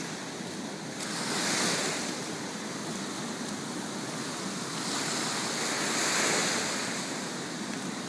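Ocean surf washing up a sandy beach: a steady rush of breaking waves that swells twice, about a second and a half in and again around six seconds in, as waves run up the sand.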